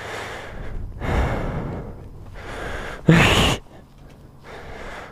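A person breathing heavily close to the microphone: a run of separate breaths, each under a second, with one short, loud, sharp breath about three seconds in.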